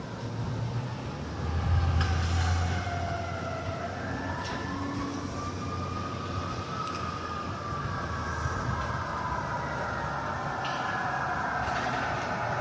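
Emergency vehicle siren wailing, its pitch sliding slowly down and then back up, over a steady low engine rumble.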